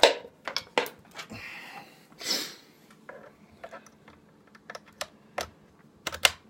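Handling noise of guitar cables and jack plugs being unplugged and plugged in: a string of sharp clicks and knocks, the loudest right at the start, with short rustles about one and two seconds in and a few more clicks near the end.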